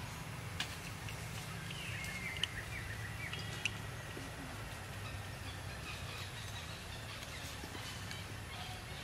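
Outdoor ambience: a steady low rumble with a few sharp clicks, and a thin high call in the first half that dips in pitch, then holds level for about two seconds.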